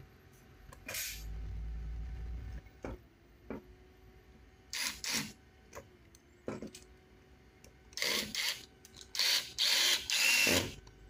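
Small electric screwdriver running in short bursts as it turns screws in the plastic shock tower brace of an RC car, with clicks from handling the parts in between. The bursts get longer and louder near the end.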